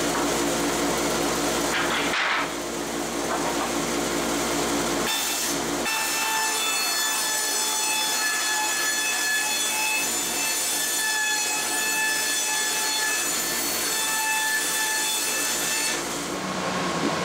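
Hitachi CB75F band saw with a 3-inch, 1-tooth-per-inch blade ripping rough-sawn white oak boards: a continuous rasping cut through the wood. The sound shifts twice in the first five seconds, then a steady whine runs under the cut until it eases near the end.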